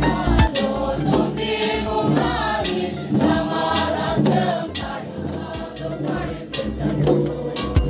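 Choir singing with music: voices over a steady beat and bass.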